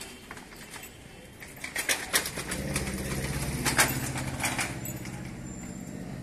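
Street traffic: a few sharp clattering knocks about two seconds in, then a motor vehicle's engine running close by for a few seconds and fading near the end.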